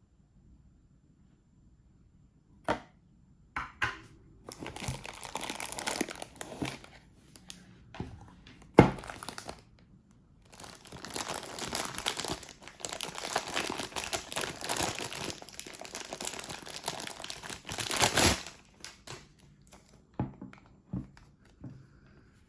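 Packaging crinkling and rustling as the soldering station is unpacked, in two long stretches, with a few sharp clicks, one loud knock in the middle and light taps near the end.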